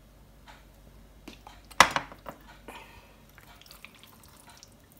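Thick yogurt being spooned onto raw chicken in a glass bowl and mixed in by hand, giving soft wet squelches and small ticks, with one sharp clink about two seconds in.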